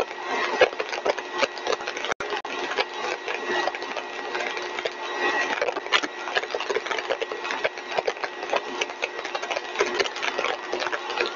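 Single-stage axial compressor rig running at full design speed: a steady machine noise with a constant hum and a dense, crackly rattle. The sound cuts out for an instant about two seconds in.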